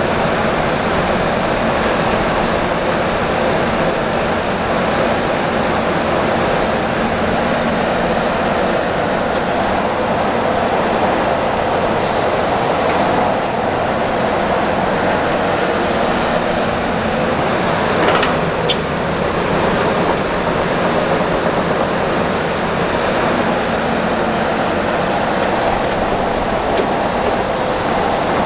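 Diesel excavators and dump trucks running steadily while digging and loading soil, a continuous heavy-machinery rumble with one brief knock about two-thirds of the way through.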